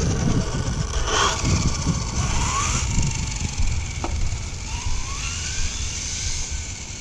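Traxxas 4-Tec 3.0 RC car's electric motor whining as the car speeds away down the road, rising in pitch twice. Wind rumbles on the microphone throughout.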